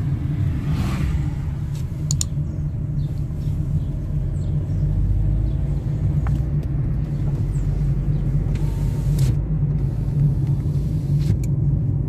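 Steady low rumble of a moving car heard from inside the cabin: engine and road noise, with a few faint clicks.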